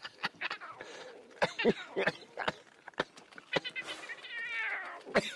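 Lion cub calling with a wavering, falling mew about four seconds in, among scattered short knocks and scuffs.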